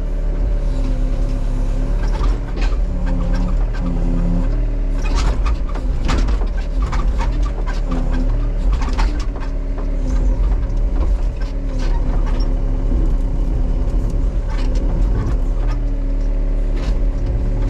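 Small Case excavator's diesel engine running under load as the machine pushes trees over, with repeated sharp cracks and knocks, thickest in the middle stretch, from branches and trunks snapping.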